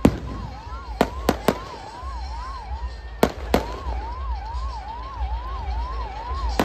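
Aerial fireworks going off: six sharp bangs (a loud one at the start, three in quick succession about a second in, two more a little after three seconds) over a low rumble. A fast siren-like tone rises and falls about three times a second underneath most of the time.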